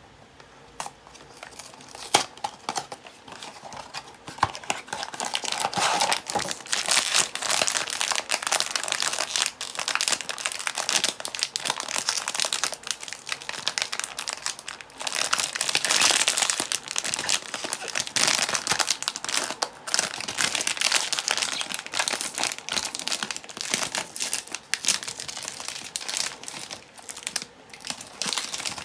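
Foil blind-box bag crinkling and crackling as hands squeeze and work it open, in long continuous stretches with louder bursts. There is a single sharp click about two seconds in.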